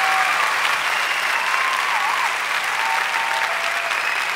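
Steady rushing of a fast-flowing river current, with a few faint thin whistle-like tones over it.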